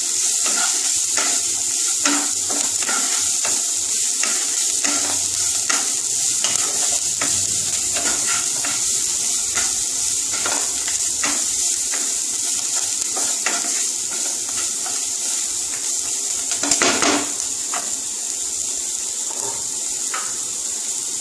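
Chopped vegetables sizzling in hot oil in a non-stick kadai while a wooden spatula stirs and scrapes them, knocking against the pan about once or twice a second. There is one louder clatter near the end.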